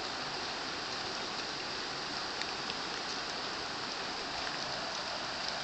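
Steady rain falling on floodwater and foliage: an even hiss with scattered sharp ticks of single drops.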